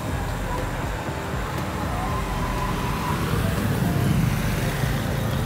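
Busy street ambience: a steady low rumble of traffic with faint voices in the background, the rumble swelling briefly near the end.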